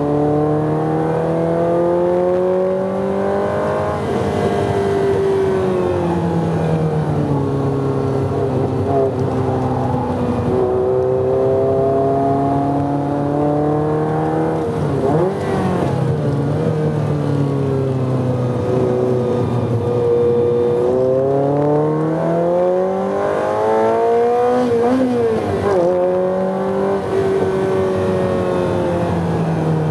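Ferrari 348's V8 heard from inside the cabin under hard driving, its note climbing as it accelerates and dropping back again and again. About halfway through and again near the end the revs jump up and down sharply, as on downshifts.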